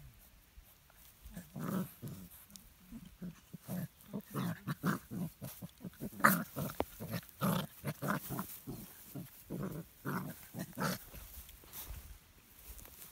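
Two puppies play-fighting, with a quick run of short growls and grunts starting about a second and a half in and easing off near the end.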